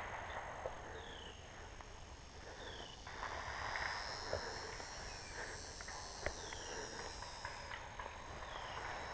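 Woodland ambience: a steady high insect buzz that cuts off about eight seconds in, and a short falling bird chirp repeated every second or two. Over it run rustling from movement through brush and a few sharp clicks, the loudest about six seconds in.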